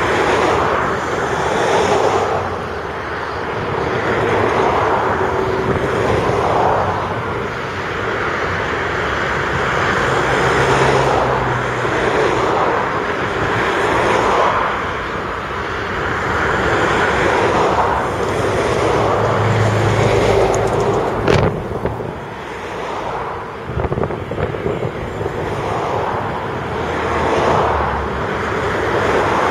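Diesel engines of a Volvo EC360B crawler excavator and a Volvo articulated dump truck working as the excavator digs and loads soil, the engine note swelling and easing every few seconds. A single sharp clank about two-thirds of the way through.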